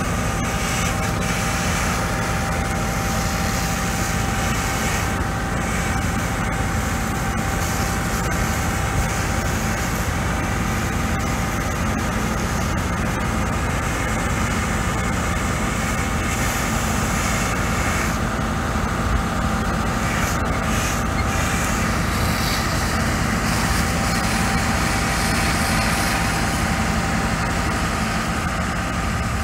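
Fire engine's engine and pump running steadily, a low drone with a steady whine, under the even hiss of foam spraying from a hose nozzle onto a car.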